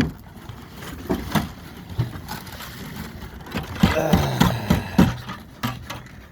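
Cows eating dry Cap'n Crunch cereal, with irregular crunching, scraping and clicking. A louder low voiced sound comes in about four seconds in and lasts around a second.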